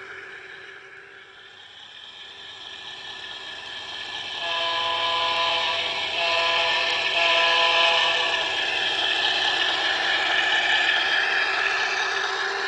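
Bachmann Davenport G-scale model locomotive rolling over trestle track with its cars, a clattering rattle that grows louder as the train comes closer. From about four and a half to eight and a half seconds its Zimo sound decoder plays one long signal blast, a chord of several steady tones.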